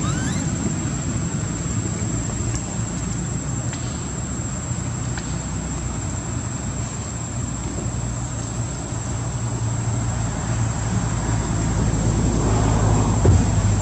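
Outdoor background sound: a steady low rumble like a running motor or distant traffic, under a steady high insect drone, with a few faint short chirps near the start and near the end.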